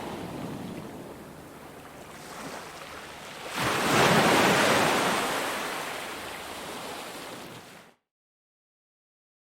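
Ocean waves on a beach: a wave breaks about three and a half seconds in, the loudest moment, then washes up and slowly fades. About eight seconds in, the sound cuts off to dead silence.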